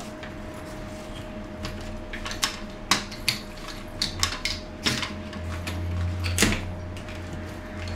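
Aluminum portable laptop table being unfolded: its hinged, telescoping legs and joints give irregular clicks and clacks as they are swung out and set. A faint steady hum runs underneath.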